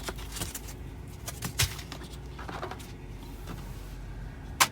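Screen protector being handled and laid against a car touchscreen: scattered light taps and rustles, with one sharp click near the end.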